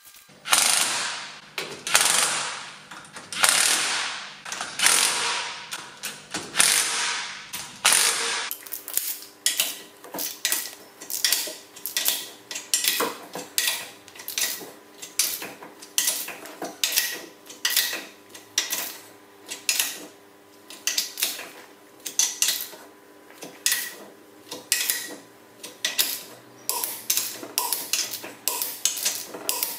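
Ratchet wrench clicking in repeated strokes as the bolts of a torque plate are tightened down before cylinder honing. The first several seconds are longer, hissing ratchet runs; after that come short bursts of clicks about once a second.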